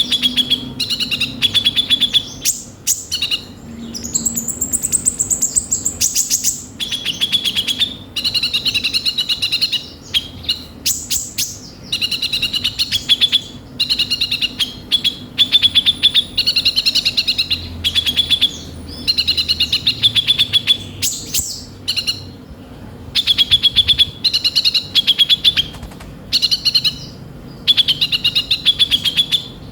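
A konin (kolibri ninja), a sunbird, singing rapid high-pitched trilled phrases of about one to two seconds each, repeated over and over with short pauses between them. A faint steady low hum lies underneath.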